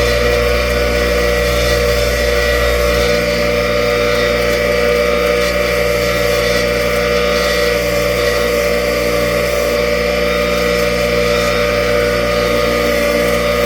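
Bench grinder running steadily at full speed with a worn wire wheel mounted, its motor giving a steady whine with several held tones.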